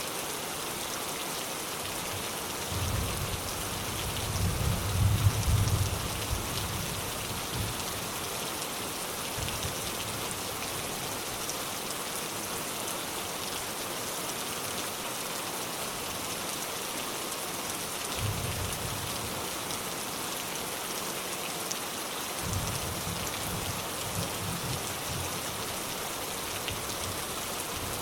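Steady rain falling, an even hiss, with low rolls of distant thunder. The longest and loudest roll comes a few seconds in, and two shorter ones follow later.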